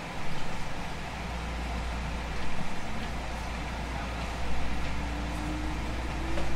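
Running sound of a JR West 221 series electric train: a steady low rumble of wheels on rail with a louder clatter about every two seconds. From about two-thirds of the way in, a thin motor whine rises slowly in pitch as the train picks up speed.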